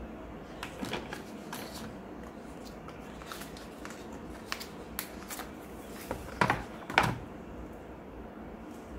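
A small white cardboard Galaxy Buds box being opened by hand, its inner tray slid out and the earbuds case lifted out: light scraping and tapping of cardboard, with two sharper knocks about half a second apart in the last third.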